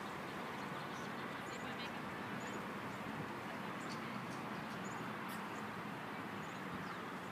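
Steady outdoor background noise, with a bird's faint, short, high chirps four or five times.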